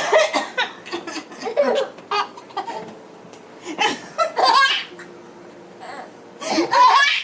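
A baby laughing in repeated bursts: about five short peals with pauses between them, the strongest about four seconds in and just before the end.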